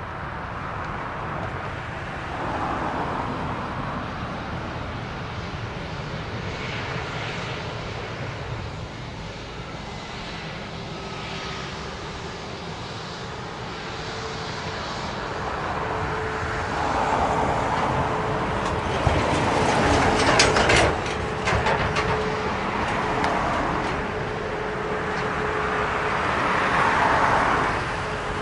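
Airbus A320-family airliner's turbofan engines running, a continuous rush that swells and eases several times, with a steady whine through the middle and later part. A cluster of sharp clicks comes about two-thirds of the way in.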